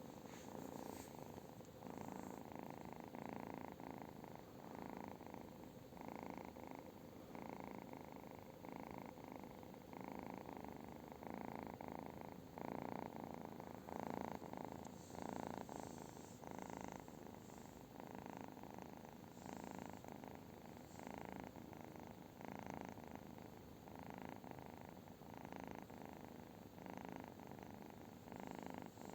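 A domestic cat purring steadily and softly, in even pulses about twice a second.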